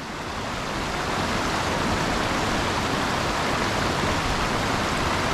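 Steady rush of water from a mountain torrent, an even noise with no breaks.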